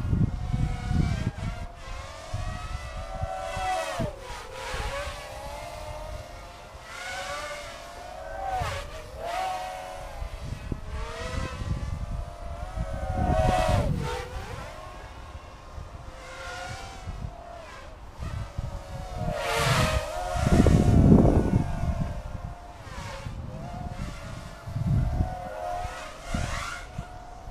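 Mini hexacopter's six RCX 1306 3100 kV brushless motors with 4045 propellers whining, the pitch repeatedly surging and dropping as the throttle changes. Bursts of low rumble from wind on the microphone come and go, strongest about 20 to 21 seconds in.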